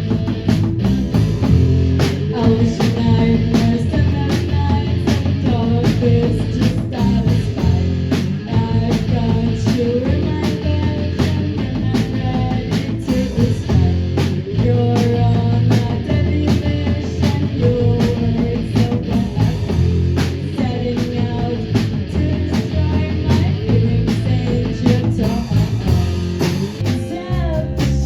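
Rock band playing live, with drums keeping a steady beat under sustained guitar and bass.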